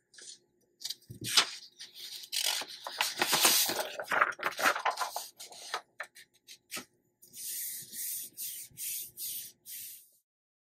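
Sheets of paper rustling as they are handled and laid down, then a hand rubbing briskly over a sheet of paper, about seven strokes three to the second, pressing it onto the inked gel plate to lift the print.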